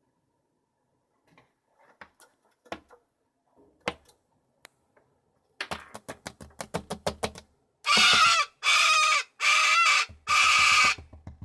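Animal calls: scattered soft clicks, then a fast run of clicks, then four loud, drawn-out calls in quick succession.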